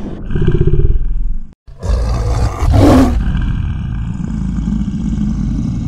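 Edited transition sound effects: a loud, low rumbling whoosh that cuts out abruptly about one and a half seconds in. Then comes an explosion-style boom with a sharp crackling hit near the three-second mark, and a long low rumble after it.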